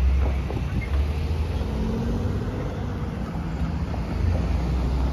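Several cars driving past close by one after another, their engines and tyres making a steady low rumble.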